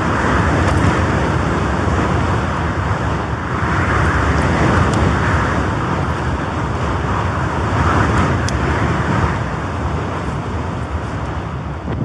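Strong gusting storm wind, loud and rushing, with a deep rumble from buffeting the microphone. It swells and eases in surges every few seconds.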